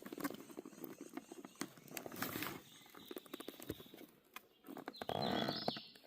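Quiet scattered clicks and knocks of a shot motorcycle helmet being handled and turned over for inspection, with a brief low pitched sound, a voice or an animal call, about five seconds in.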